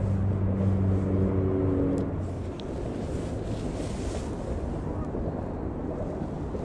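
An engine running with a steady low hum that cuts out about two and a half seconds in, then wind rushing on the microphone.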